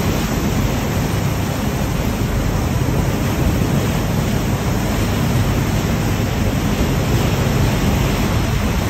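Steady rushing of a moving cruise boat's churning wake and the wind, with wind buffeting the microphone.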